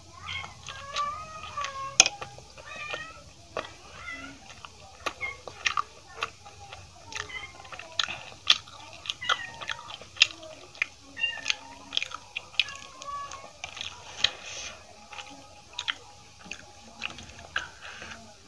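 Close-miked chewing and wet mouth sounds of aloo paratha dipped in yogurt being eaten, with many sharp little clicks. A cat meows at times, a wavering call near the start and again past the middle.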